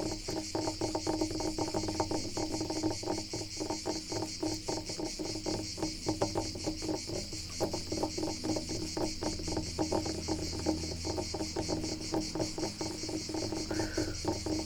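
Wood being scratched in quick, irregular strokes, many to the second, over a steady high chirring of insects.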